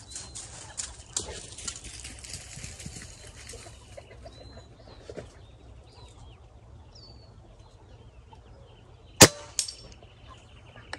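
One shot from a scoped air rifle about nine seconds in, a sharp crack, followed about half a second later by a fainter tick of the pellet striking the distant knockdown target. Birds chirp in the background during the first few seconds.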